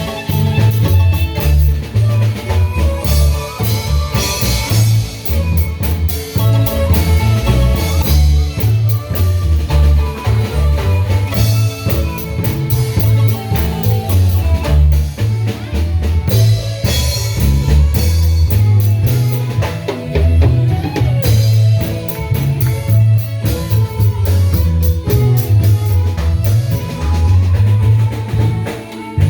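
A marimba ensemble playing an up-tempo tune, with a bass line and drum kit under the marimba.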